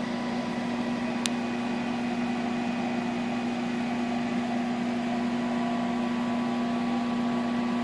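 Direct-to-garment (DTG) printer running with a steady machine hum, a strong low tone over a fan-like hiss, and a single sharp click about a second in.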